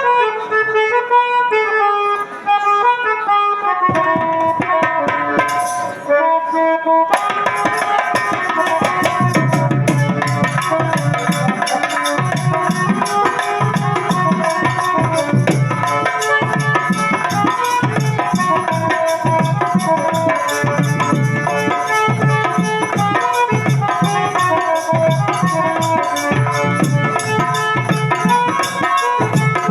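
Music playing for a stage scene: a melody line stepping through notes, joined about seven seconds in by a steady drum beat that carries on under the tune.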